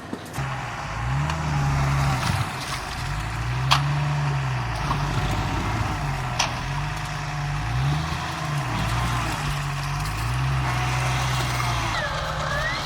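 Off-road 4x4 vehicle engine running under load, its pitch rising and falling several times as it is revved and eased off, with a couple of sharp clicks.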